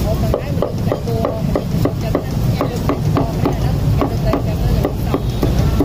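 Cleaver chopping roast beef on a round wooden chopping block: a steady run of knocks, about three a second.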